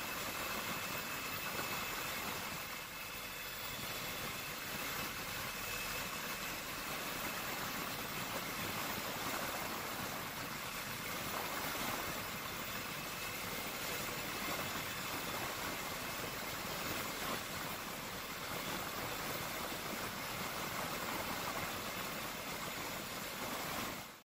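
Steady helicopter cabin noise: the engine and rotor drone with an even hiss, heard from inside the cabin, unchanging until it fades out at the very end.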